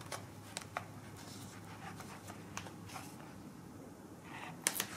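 Faint handling noises: a few light clicks and rustles as a small FPV camera is adjusted in its 3D-printed plastic mount on a foam model plane, with a sharper click near the end. A faint low hum of room tone lies underneath.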